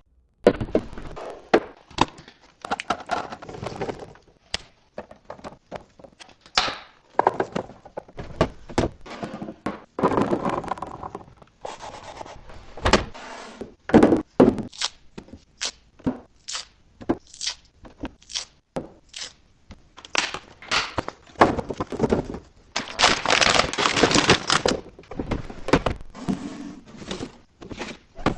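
Kitchen containers, jars and packages being handled and set down: a run of thunks, knocks and clicks, mixed with stretches of rustling and crinkling packaging, the loudest rustling coming late on.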